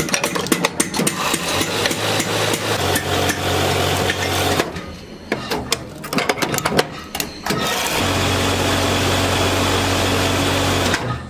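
Rapid hammering and knocking on metal in a workshop, over a low hum. About eight seconds in, a motor-driven machine starts running steadily for about three seconds, then cuts off.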